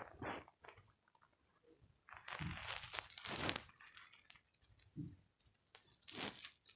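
Short bursts of crunching, crinkling noise, four or five in a row with quiet gaps between.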